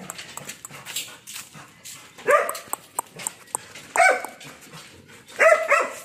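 Belgian Malinois puppies barking: a single bark about two seconds in, another about four seconds in, and a quick double bark near the end, with light clicks between.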